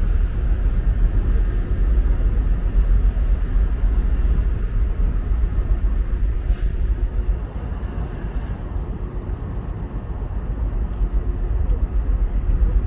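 Steady low rumble on a large car ferry's deck as the ship berths, with a faint click about six and a half seconds in.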